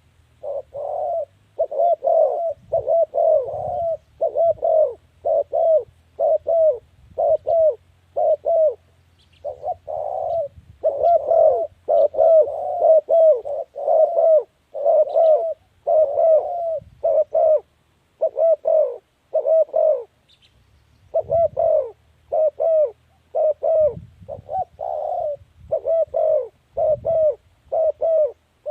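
Spotted dove cooing: runs of short, repeated coo notes with brief pauses between phrases.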